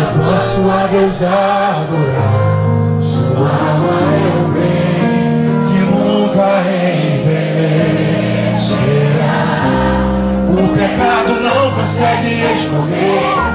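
Live gospel music: singing with keyboard and band accompaniment through a stage sound system, continuous and steady.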